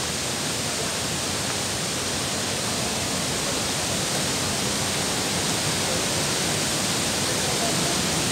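Steady rushing of a waterfall, growing slightly louder.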